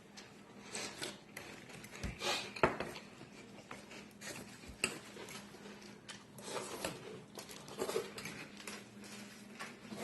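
A spoon and a fork clinking and scraping against cereal bowls in quick, irregular strokes, with a sharper clink about two and a half seconds in.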